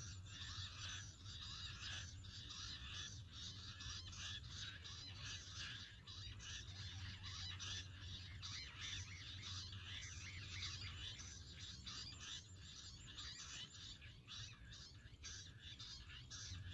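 Jungle bush quail calling: many short, high-pitched calls repeated rapidly and overlapping into a continuous chattering chorus, with a steady low hum underneath.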